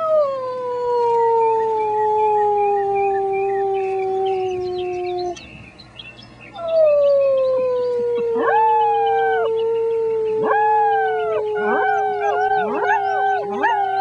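Six-week-old German Shepherd puppies howling. A long, low howl falls slowly in pitch for about five seconds and breaks off. After a short pause a second long, falling howl begins and holds to the end, and from about eight seconds in, several higher, short howls that rise and fall join over it.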